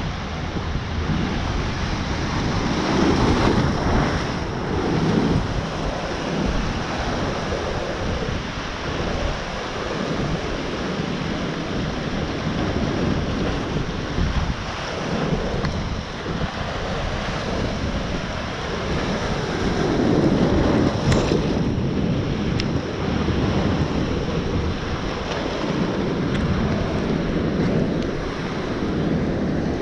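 Ocean surf surging and breaking against a lava rock shoreline, swelling louder a few times as bigger waves come in, with wind buffeting the microphone.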